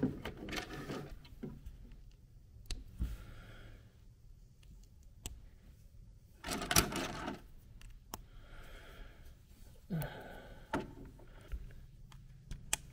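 LEGO bricks being handled and snapped together by hand, with scattered light plastic clicks and rattles among loose pieces. A few short, louder clatters stand out, the loudest about seven seconds in.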